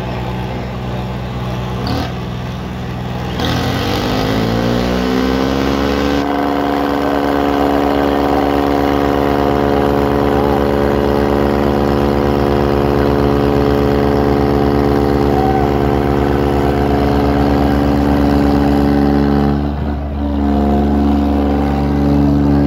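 Diesel tractor engine idling, then revving up about three seconds in and held at high revs; it drops back briefly near the end before revving up again.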